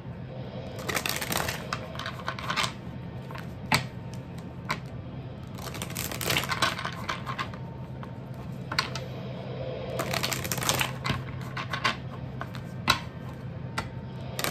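Tarot cards being shuffled by hand: several spells of rapid card clicks and flutters, with single sharp snaps between, over a steady low hum.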